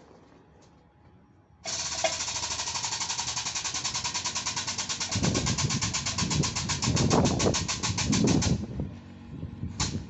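Compressed-air tool for a tyre change starting suddenly about two seconds in and running for about seven seconds, a steady hiss with a fast, even pulsing. Lower knocks and rumbling join about halfway through.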